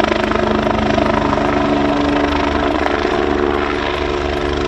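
Military helicopter flying overhead: a steady rotor beat with a steady turbine whine.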